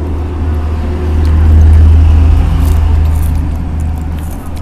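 A steady low rumble that swells for a second or two in the middle, with faint clinks of spoons against soup bowls.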